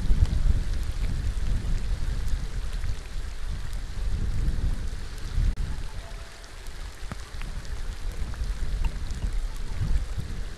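Rain falling steadily on water, a dense hiss with scattered sharp drop ticks. Under it a deep low rumble, loudest at the start, eases off about halfway through.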